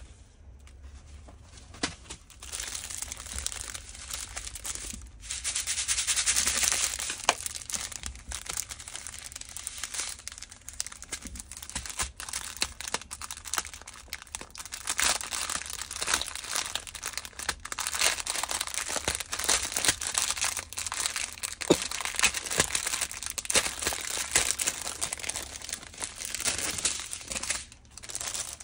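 Clear plastic packaging of a diamond-painting kit crinkling and crackling as hands handle the sleeve of small resin drill-bead packets, with scattered small plastic clicks. It starts about two seconds in and drops away just before the end.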